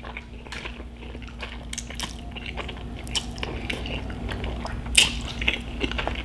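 Close-up wet slurping and chewing of spaghetti carbonara, a string of small wet mouth clicks as the noodles are drawn in, with a sharper click about five seconds in. A faint steady hum lies underneath.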